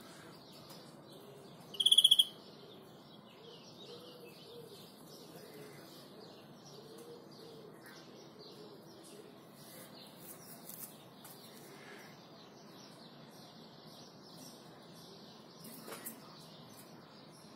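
European greenfinch giving one loud, short rapid trill about two seconds in, over faint continuous chirping of wild birds in the background.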